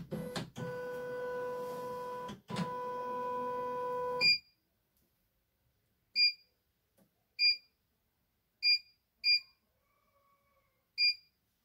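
CNY E900 embroidery machine: a steady motor hum in two stretches of under two seconds each, then five short beeps from its touch-panel keys as buttons are pressed.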